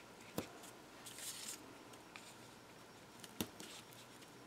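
Faint handling of paper and double-sided tape: two light taps and a brief rustle about a second in.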